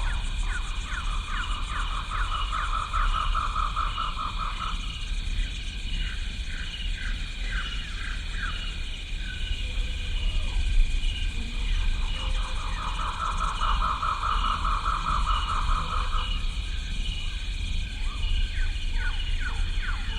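Jungle chorus of insects and calling animals: a steady high insect drone with a regular pulse, over which come repeated short falling chirps and, twice, a long trill lasting a few seconds. A constant low rumble runs underneath.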